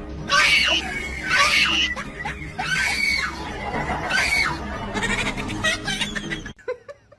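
Four loud, high screams, each rising and falling in pitch, a little over a second apart, over background music; the sound cuts off about six and a half seconds in.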